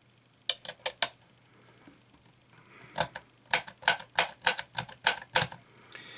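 Sharp clicks from the plastic control knobs of a Roberts Rambler transistor radio being pushed onto their spindles and worked. There are four quick clicks about half a second in, then a run of about ten evenly spaced clicks, roughly three a second, from about three seconds in.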